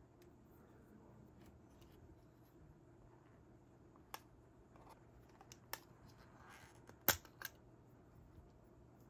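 A few sharp plastic clicks, four in all with the loudest about seven seconds in, as a keycap puller is worked out of its clip slot in a plastic keycap case.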